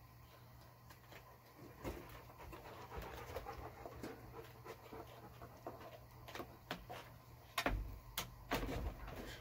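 A dog panting and sniffing close to the microphone, loudest near the end, over soft scrapes and clicks from cleaning meat off a boiled bear skull.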